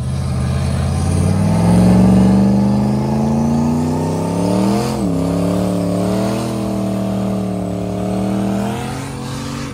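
Single-turbo drag car engine held at high revs for a line-lock burnout, heard from inside the cabin, with the rear tyres spinning. The revs climb over the first two seconds, flare and dip sharply about five seconds in, then hold and fall away near the end.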